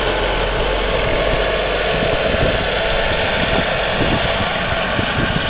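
Model gas turbine (jet engine) of an RC helicopter running steadily, a dense, even jet roar with a faint steady whine in it. An irregular low rumble runs underneath.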